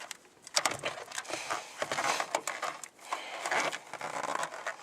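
Rustling and a string of sharp clicks as a small plastic novelty capsule and its contents are handled and opened.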